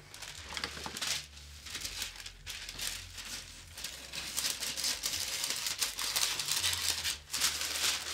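A sheet of parchment paper crinkling and rustling as it is handled, getting busier and louder about halfway through.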